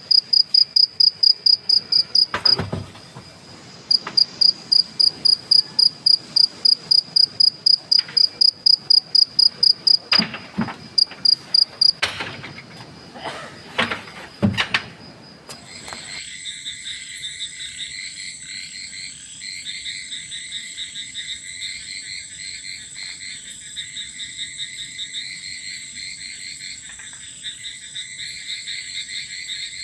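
A cricket chirping loudly in a fast, even series of high pulses, about five a second, with a short pause early on. About halfway through, after a few knocks, it gives way to a quieter night chorus: a steady high whine with rapid trilling calls of insects and frogs.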